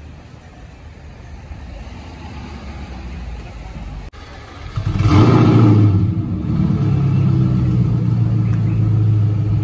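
A low rumble builds, then about five seconds in a car engine fires with a brief flare of revs and settles into a steady, loud idle.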